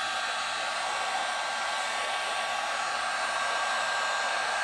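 1800-watt heat gun blowing steadily, a constant rush of air with a faint thin tone in it, shrinking heat-shrink tubing over a cable splice.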